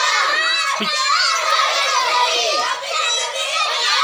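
A group of children shouting slogans together, many high voices overlapping in a steady chorus.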